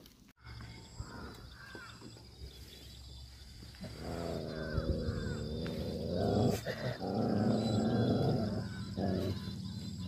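Dogs growling: from about four seconds in, a loud, low, rough growling that goes on with short breaks.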